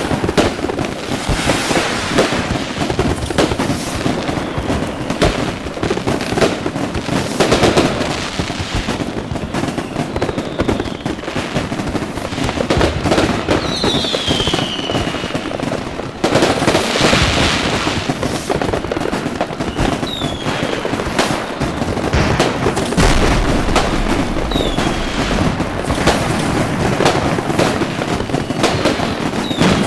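Dense fireworks barrage: continuous crackling and bangs, joined several times by a short whistle that falls in pitch.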